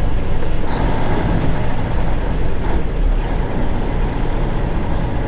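Semi truck's diesel engine running steadily, with a low hum and road noise while driving.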